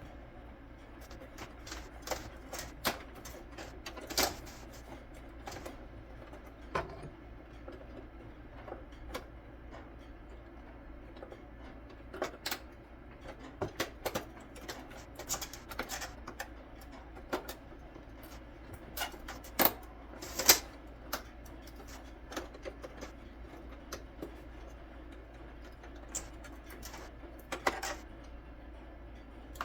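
Irregular clicks and clacks of plastic headlight parts and hand tools being handled as a headlight assembly is taken apart, with two louder clacks about two-thirds of the way through, over a faint steady low hum.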